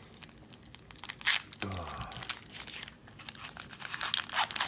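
A trading-card booster pack's wrapper being crinkled and torn open by hand, with irregular crackles and a few louder rips.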